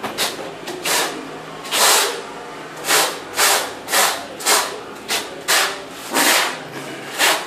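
Steel notched trowel scraping tile adhesive across the back of a large polished floor tile, back-buttering it before laying. About eleven quick scraping strokes, one to two a second.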